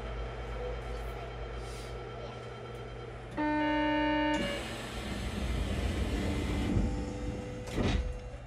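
Door-closing buzzer at an Osaka Metro New Tram station stop: a steady pitched tone lasting about a second, about three seconds in. A rush of noise follows as the doors close, with a thump near the end.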